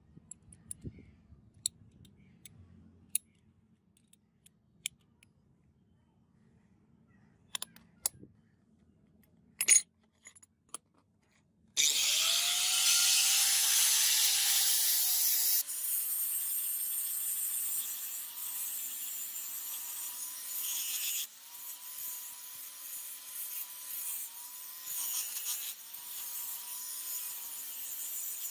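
A few light clicks and taps of small metal parts being handled, with one sharp knock, then about twelve seconds in an angle grinder with a sanding disc starts up and grinds the edge of a brass plate. Its motor whine wavers as the disc is pressed into the metal.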